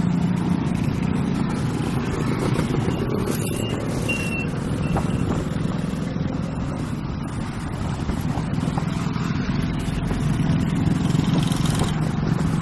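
Busy road traffic: motorcycles, cars and a heavy truck running past with a steady low engine hum, and a few short high beeps a few seconds in.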